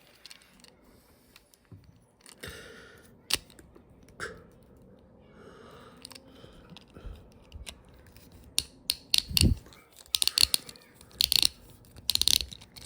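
Hard plastic Beyblade X top parts being handled and pushed together: scattered clicks and rattles that get busier near the end, with one dull thump about nine and a half seconds in.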